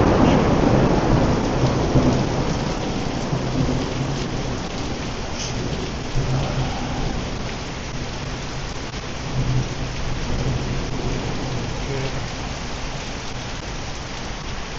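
Heavy monsoon rain pouring steadily, with a rumble of thunder that fades away over the first few seconds.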